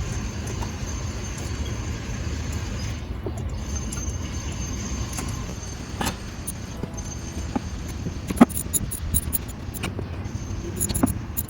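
Steady low rumble with scattered sharp metallic clicks and light clinks, the sharpest about eight and a half seconds in and a quick run of fine ticks near the end.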